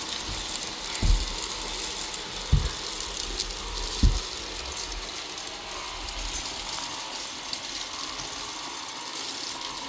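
Deebot N79 robot vacuum running, its brushes and suction rattling up grains of dry rice with a steady hiss and scattered clicks. Three low thumps about one, two and a half and four seconds in.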